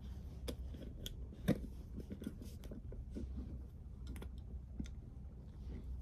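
Faint, irregular small clicks and knocks of hard doll parts and cord being handled and worked into the doll's head, with one sharper click about a second and a half in.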